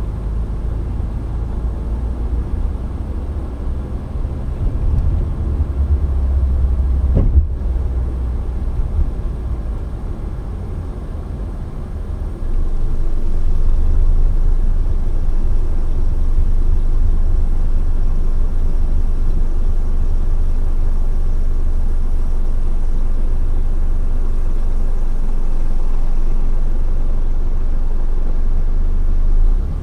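Low steady rumble of a moving car's engine and tyres, heard from inside the car. It steps up in loudness a little under halfway through, and there is a single brief knock about seven seconds in.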